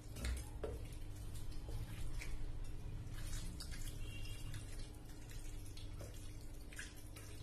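Cold water poured from a glass jug onto paneer curds in a muslin cloth over a strainer, splashing and trickling through, rinsing out the lemon's acidity. A few clicks come near the start, and the pouring is loudest in the middle before easing off.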